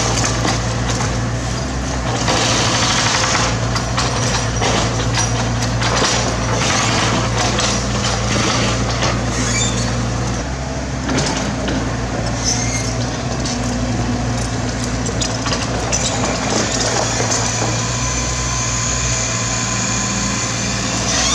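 Mini excavator diesel engine running steadily under working load, with repeated scrapes and knocks of the bucket working through rock debris; the engine note shifts briefly about halfway through.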